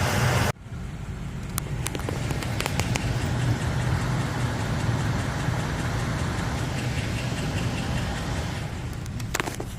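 Car engine idling with intermittent sharp clicks over its steady hum: a ticking that a mechanic diagnosed as lifter tick.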